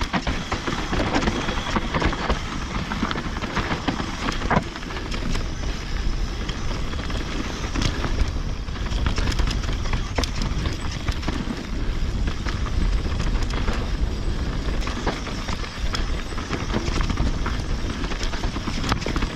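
Mountain bike rolling down a steep, rocky dirt trail: tyres crunching over dirt and stones with a steady low rumble, and frequent sharp clicks and knocks from the bike rattling over rocks and roots.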